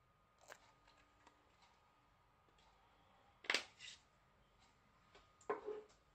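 Small plastic acrylic-powder jar being handled and set down on a table: a few faint clicks, then two sharper knocks about three and a half seconds in, and a softer rustle near the end.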